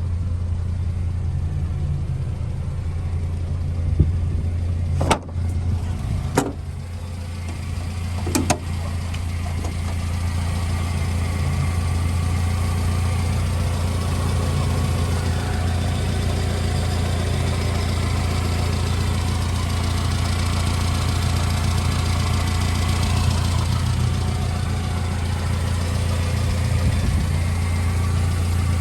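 Supercharged 660 cc EN07 four-cylinder engine of a 1995 Subaru Sambar mini truck idling steadily. Three sharp knocks come between about five and eight and a half seconds in.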